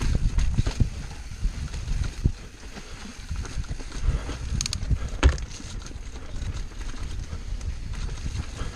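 Mountain bike descending a rough dirt singletrack: tyres rumbling over the dirt and the bike rattling and knocking over bumps, roots and rocks, with the sharpest knock about five seconds in.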